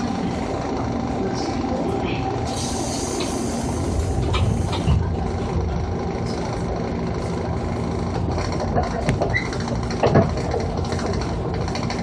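Cabin sound of a JR 205 series electric commuter train with external-fan traction motors: a steady running rumble with a held hum. About two and a half seconds in, a hiss lasts about two seconds, and a few short knocks come near the end.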